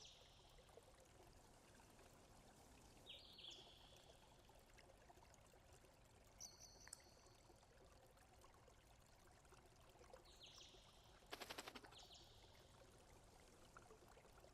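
Faint outdoor ambience: a bird gives short high chirps about four times, spaced a few seconds apart, over a low steady hiss. About eleven seconds in there is a brief rapid rattle.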